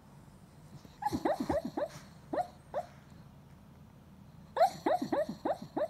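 West Highland white terrier yipping in its sleep while dreaming. Two quick runs of short yips that fall in pitch, the first about a second in and the second near the end, with a couple of single yips between.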